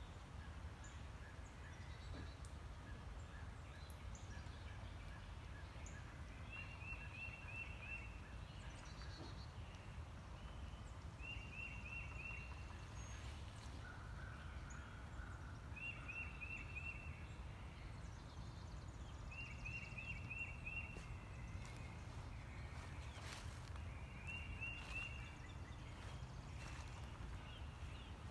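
A bird calls five times, each call a quick run of repeated notes lasting about a second and a half, a few seconds apart. Other faint bird notes come and go over a steady low rumble.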